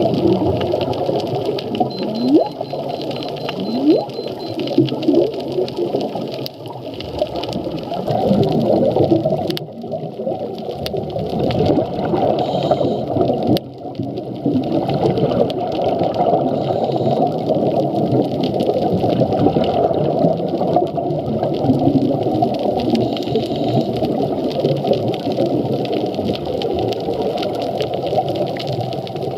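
Humpback whale song heard underwater: a few short upward-sweeping calls about two and four seconds in, over a steady underwater rushing noise.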